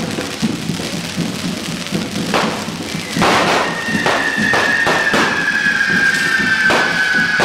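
Hand-held correfoc fireworks: sparkler fountains spraying, with a run of sharp firecracker cracks starting about two seconds in. From about three seconds a long high whistle slowly falls in pitch, over a rhythmic low pounding.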